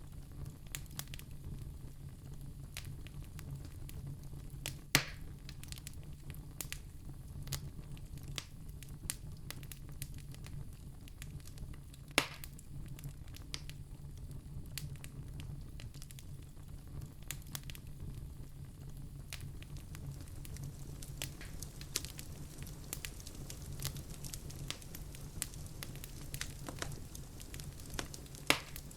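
Wood fire in a fireplace crackling, with frequent small sharp pops over a steady low rumble of the flames. Two louder pops stand out, about five seconds in and again about twelve seconds in.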